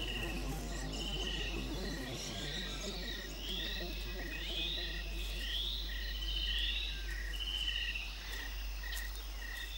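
Bush ambience of chirping animals: an evenly spaced chirp nearly three times a second, over which a higher trilled call repeats about once a second, with a few rising and falling calls in the middle.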